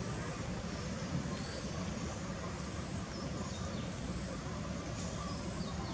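Steady outdoor background noise: a low rumble with faint, scattered high chirps.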